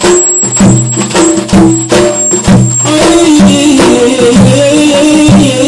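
Instrumental break in an Arabic 'ataba lament: a melody in held notes that step up and down over a steady, busy percussion beat.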